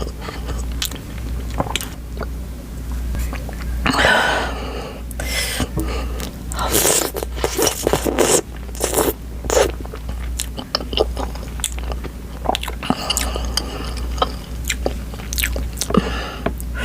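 Close-miked eating sounds: biting, crunching and chewing of food, with many small mouth clicks and a few louder, noisier mouthfuls in the middle.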